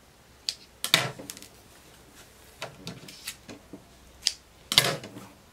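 Sewing scissors snipping thread and being handled: a few sharp, irregular clicks, the loudest about a second in and near the end, with light rustling of chiffon fabric.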